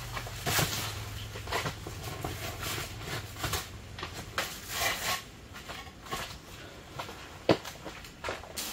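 Footsteps and shuffling on a canvas tent floor as heavy stone pavers are set down on it, with irregular knocks and rustling of the canvas, and one sharp knock near the end.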